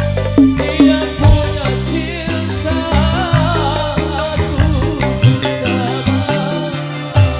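Up-tempo music with a wavering melody over heavy, repeated bass-drum thumps, played loud through a large PA sound system during a sound check.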